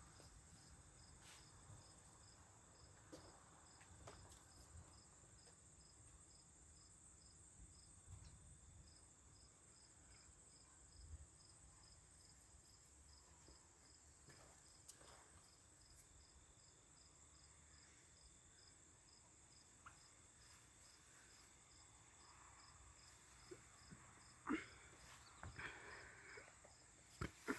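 Near silence with faint, high-pitched insect chirping pulsing evenly about three times a second, and a few faint clicks near the end.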